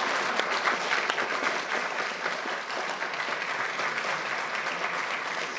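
Large audience applauding, a dense steady clatter of many hands clapping that eases off slightly toward the end.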